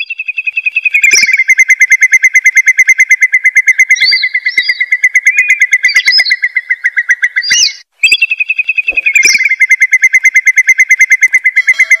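Recorded lure call of a curlew (burung gajahan): a long, rapid trill of about eight notes a second that starts a little higher and settles to a steady pitch. It lasts about eight seconds, breaks off briefly and starts again. Short higher calls sound over it.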